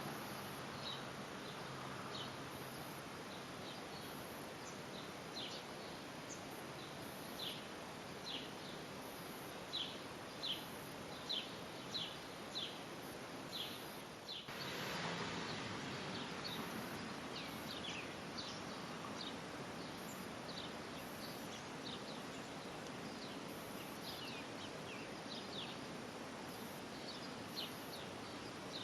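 Birds calling in short, high, downward chirps, repeated many times, over a steady outdoor background hiss. The chirps are loudest about a third of the way in, and the background shifts abruptly about halfway through.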